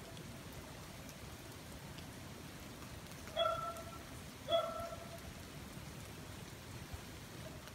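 Steady rain falling on paving, ground and foliage, with two short pitched calls about a second apart near the middle.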